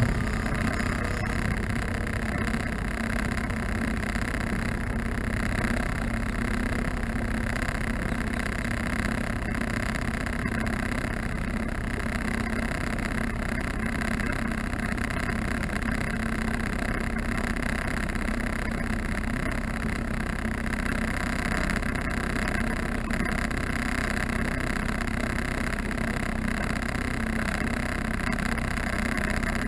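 Small boat's outboard motor running steadily, an even engine hum with no change in speed.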